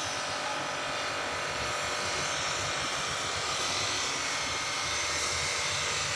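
Pressure washer running steadily, a motor whine under the hiss of the water jet spraying algae off terrace paving.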